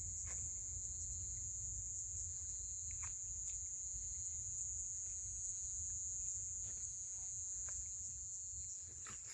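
Crickets trilling in a steady, unbroken high-pitched chorus at nightfall.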